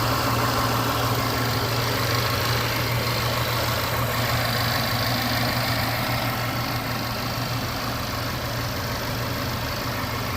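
Land Rover Sport's supercharged V6 engine idling steadily.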